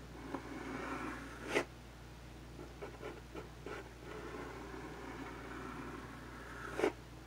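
Pencil sketching on paper on a clipboard: two stretches of scratchy strokes with a few small ticks between them, and a sharp click about one and a half seconds in and another near the end.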